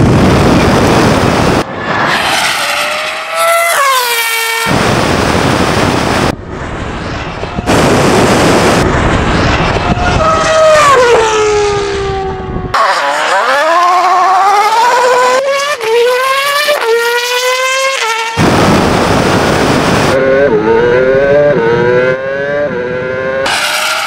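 Race cars launching and passing in a string of short cuts. A Red Bull RB8 Formula 1 car's 2.4-litre V8 screams up in pitch and drops back at each quick upshift, alternating with bursts of loud rushing noise.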